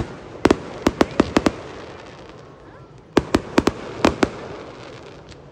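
Aerial firework shells bursting in two quick volleys of sharp bangs, the first about half a second in and the second about three seconds in, with their echoes fading in between.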